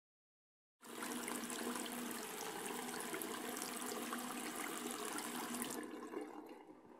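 Water running in a bathroom: a steady rush that starts about a second in and dies away near the end.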